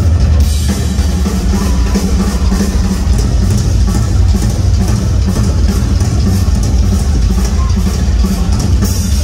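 Live rock drum solo on a full drum kit, amplified through a concert PA: fast, continuous drumming with a heavy bass drum.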